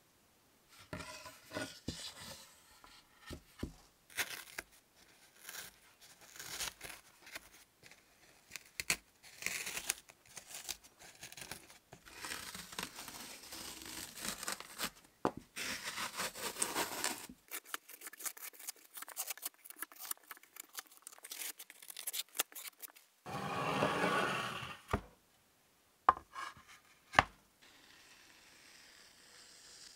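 Green masking material being peeled and torn off an old game board by hand, in many short spells of tearing, crinkling and scraping. A louder stretch of noise comes about three quarters of the way through, followed by two sharp clicks near the end.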